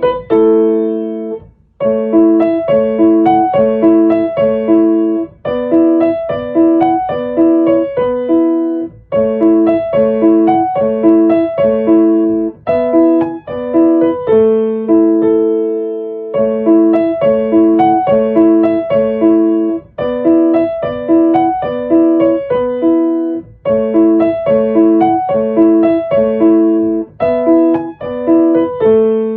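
Background music: an electric piano playing a light, repetitive melody in short phrases with a steady beat.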